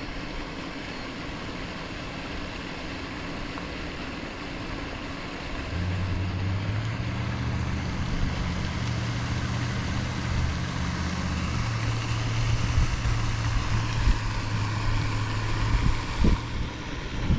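Wind buffeting the microphone, joined about six seconds in by a steady low motor hum that shifts slightly in pitch a little past halfway.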